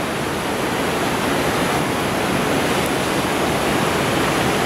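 Steady rush of fast-flowing water from a mountain river, an even, unbroken roar of water with no separate splashes.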